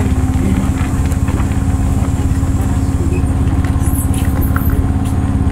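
An engine or motor running at idle, unseen: a steady low drone with a fast, even throb.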